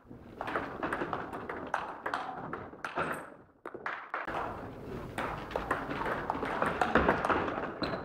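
Table tennis rally: a celluloid ball clicking off the bats and bouncing on the table in quick, irregular pings, with reverberation from the gym hall.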